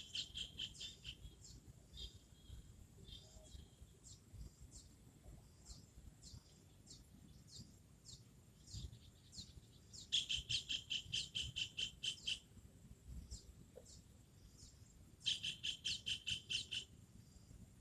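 A small bird's rapid series of high, sharp chirps, about seven notes a second, heard in three bursts of about two seconds each: at the start, about ten seconds in, and about fifteen seconds in. Scattered single chirps fall between the bursts.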